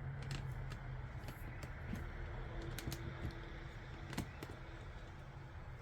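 A few scattered light clicks and taps over a low steady hum, with one sharper click about four seconds in.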